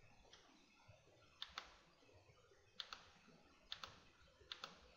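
Computer mouse clicking: four faint double clicks of the button pressing and releasing, about a second apart, as options are picked from drop-down menus.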